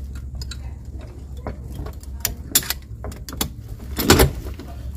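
Metal clicks and clunks from a cutlass bearing press tool being handled on a propeller shaft strut, with a louder clank about four seconds in, over a steady low rumble.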